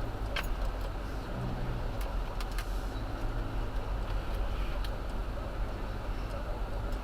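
Car driving over rough ground, heard inside the cabin: a steady low engine and road rumble with frequent small rattles and clicks.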